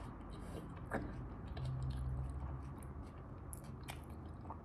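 Quiet chewing of a mouthful of spaghetti, with faint mouth clicks and a short low closed-mouth hum near the middle.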